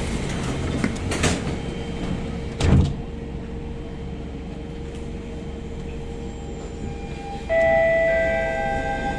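SMRT C651 metro train heard from inside the carriage: a steady low rumble with a short heavy thud about two and a half seconds in, then, about seven and a half seconds in, several steady whining tones start abruptly and slowly fade.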